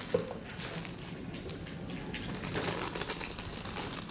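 Scattered light clicks and rustling in a quiet room.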